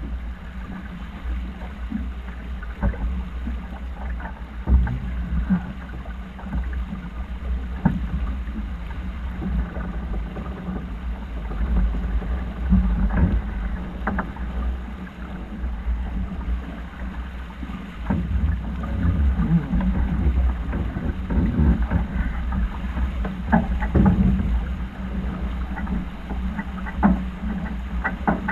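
Wind buffeting the microphone on a yacht during a sailing race: a steady low rumble with scattered knocks and clicks.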